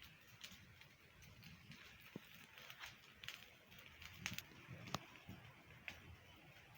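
Near silence: faint outdoor quiet with scattered light clicks and crackles, the two sharpest ticks about four and five seconds in.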